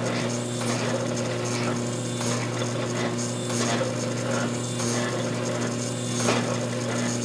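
Forging press running with a steady electric hum while its dies slowly squeeze a red-hot wootz steel ingot, with scattered sharp cracks and clicks through the hum.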